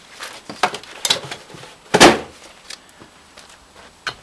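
A few sharp knocks and clatters of handling, with one loud thump about two seconds in.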